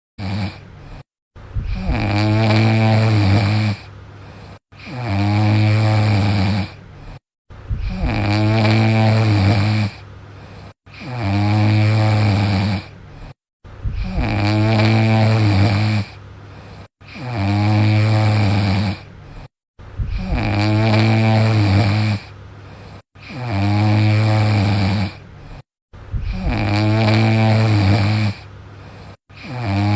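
A dog snoring in a regular rhythm, about one loud low snore every three seconds. Each snore lasts about two seconds and is followed by a quieter stretch, and short silent gaps separate the snores.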